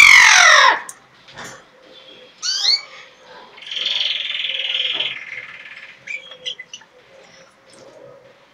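African grey parrot calling: a loud whistle that falls steeply in pitch at the start, a couple of short rising whistles about two and a half seconds in, then a longer harsh call lasting about a second and a half, followed by a few short clicks.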